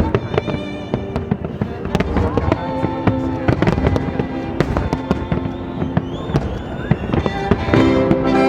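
Fireworks display, shells bursting and crackling in rapid, irregular succession, with classical violin music mixed over it.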